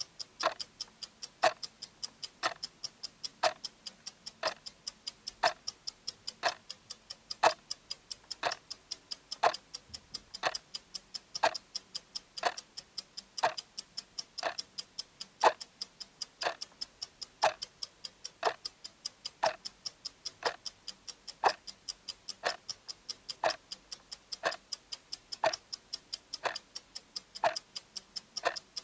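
Clock ticking sound effect for a countdown timer: a steady, even rhythm with a louder tick once a second and lighter ticks in between.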